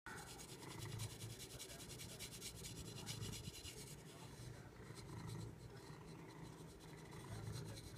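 Wooden back scratcher rasping quickly back and forth through a cat's fur, the strokes busiest in the first half and lighter after that. A low rumble swells and fades underneath every second or two.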